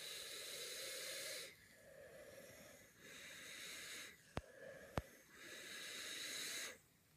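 Air being drawn through an Aspire vape tank during a long drag: an airy hiss that comes in four stretches with short breaks between them. Two sharp clicks fall between the last two stretches, about four and five seconds in.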